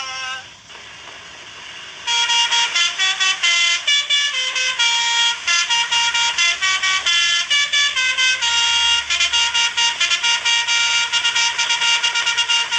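Basuri 'telolet' multi-tone horn playing a tune: a quick run of short, shifting horn notes that starts about two seconds in.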